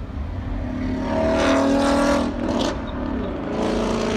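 Car engine revving hard in two long pulls, the first about a second in and the second near the end.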